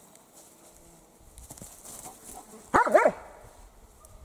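German shepherd dog giving two quick, loud barks about three seconds in.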